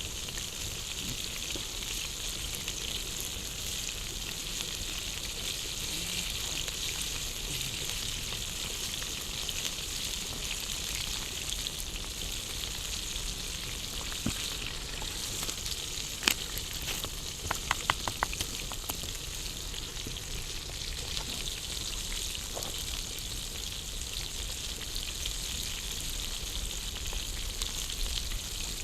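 Steady sizzling hiss of food cooking over an open campfire, with a sharp click a little past halfway and a quick run of about five clicks right after.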